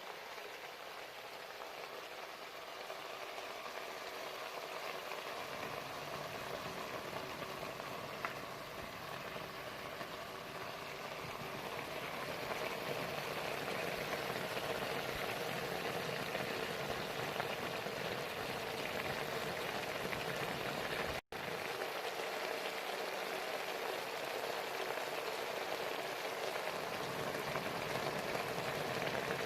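Chicken gravy cooking in a pan, a steady bubbling, sizzling hiss that grows gradually louder, cutting out for an instant about two-thirds of the way through.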